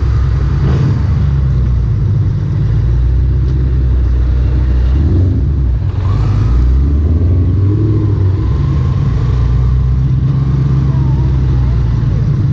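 Low, steady engine rumble of slow street riding: the Honda CB 250 Twister's single-cylinder engine running at low speed, with a Ford Mustang's engine running just ahead.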